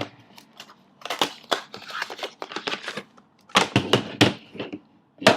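Plastic wrapping and cardboard packaging of a trading-card box being torn open and handled: irregular crackling, crinkling and clicking in bursts, with a sharp snap near the end.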